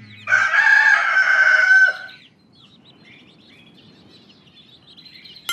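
A rooster crowing once, a long call of nearly two seconds, followed by faint chirping of small birds.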